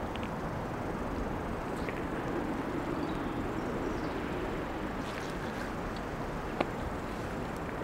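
Steady outdoor background noise, a low even rush, with a few faint ticks and one sharp click about six and a half seconds in.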